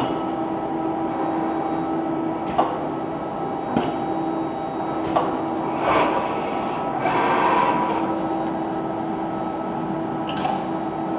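FANUC M-6iB/6S robot arm running with a steady hum from its drives. Its pneumatic gripper and metal canisters give several sharp clicks and clacks, and there is a short hiss of air about seven seconds in.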